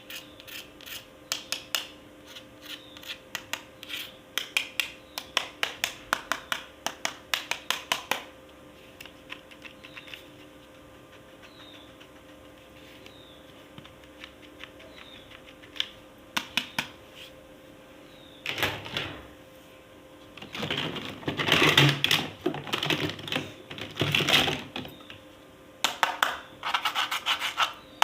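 Handling of plastic toy packaging: quick runs of sharp clicks and taps, a stretch of scattered clicks, then scratchy rubbing and scraping before the rapid clicking resumes near the end.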